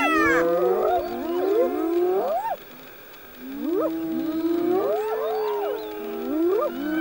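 Several spotted hyenas calling at once: overlapping whooping and squealing cries that rise and fall in pitch, with a short lull about halfway through.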